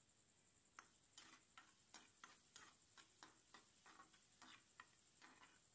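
Faint, quick clicks of a spatula knocking and scraping against the pan while stirring onions as they sauté, about three a second, starting about a second in.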